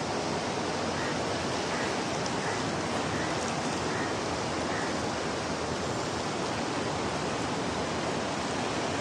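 Steady rush of turbulent river water flowing fast below a dam, an even wash of water noise.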